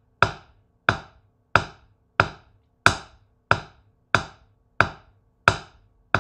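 Wooden drumsticks striking a practice pad in slow, evenly spaced single strokes, about one and a half a second, each a sharp tap: a paradiddle played slowly (right, left, right, right, left, right, left, left).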